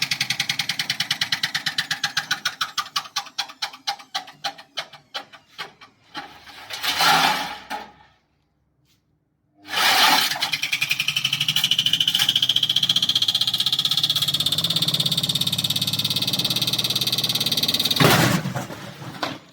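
Hotpoint FMG723 washing machine drum spinning down, knocking once a revolution, the knocks slowing and fading over about six seconds. After a brief silence the machine runs hard again, a steady rattle with a rising whine, until it stops abruptly near the end.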